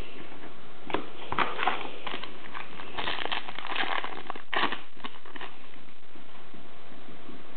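Trading cards scraping and flicking against each other as a stack is fanned through by hand: short, irregular rustles for the first few seconds, then only a steady hiss.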